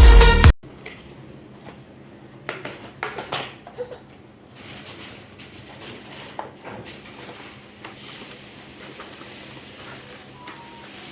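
Electronic dance music cuts off suddenly half a second in. After it, toy packaging is handled in a quiet room, with a cluster of short clicks and rustles about two to four seconds in and a few faint ticks afterwards.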